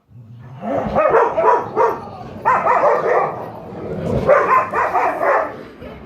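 Pet dog barking in three runs of a second or more each, with pitch that wavers.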